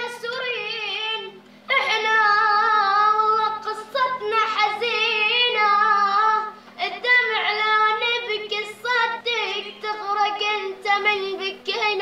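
A boy singing a Syrian song in Arabic, solo, in a high voice with a wavering pitch, phrase after phrase with short breaks between.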